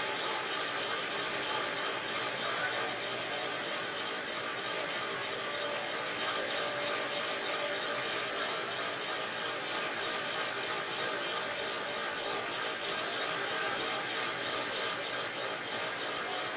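A tool working metal while the nut is made, a steady noise that grows a little louder near the end.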